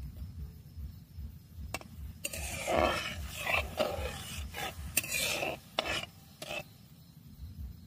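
Flat metal spatula scraping and stirring against the bottom of a metal kadai of thickening vegetable soup, with cornflour just stirred in. A run of rasping strokes starts about two seconds in and ends shortly before the finish.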